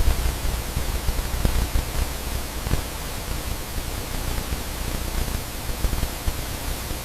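Steady hiss spread across all pitches over a fluttering low rumble, with a few faint clicks.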